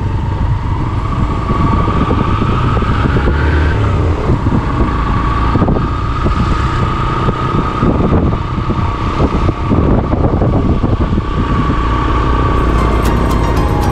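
Motorcycle engine running while riding along a wet road, with a steady whine over it and wind buffeting the microphone.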